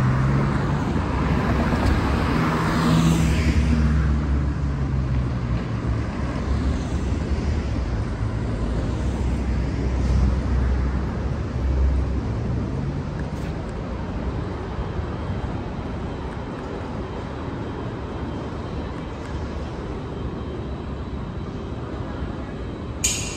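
Street traffic noise: vehicles passing with a low rumble, one going by in the first few seconds with a falling engine tone, then a steadier traffic hum. A short sharp click near the end.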